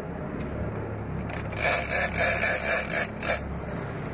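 Big-game fishing reel being cranked, a rhythmic scraping at about three strokes a second that starts about a second and a half in and stops near the end. It runs over the steady low drone of the boat's engine.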